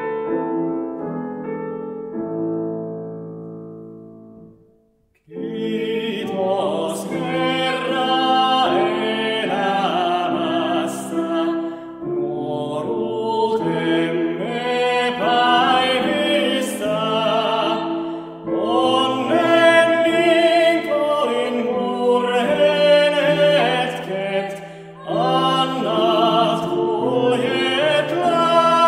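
Piano chord dying away at the end of the introduction, then a brief silence. About five seconds in, singing of a Finnish hymn begins with vibrato, accompanied by piano.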